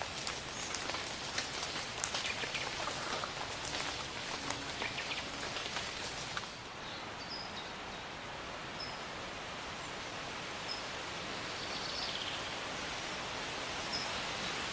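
Rain pattering on leaves in a forest. About halfway through it gives way abruptly to a steady hiss, with a small bird giving short high chirps every second or two.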